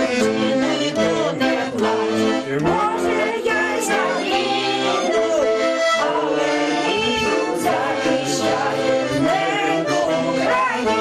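A small group of women and a man singing a song together, accompanied on accordion with held chords.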